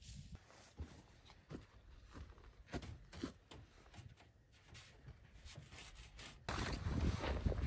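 Faint scattered footsteps and rustling on dry ground. Near the end, wind noise on the microphone starts suddenly and carries on.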